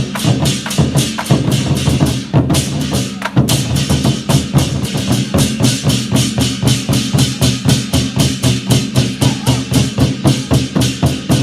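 Chinese war drums (zhangu) beating a loud, fast rhythm, settling into an even stream of strikes about four seconds in.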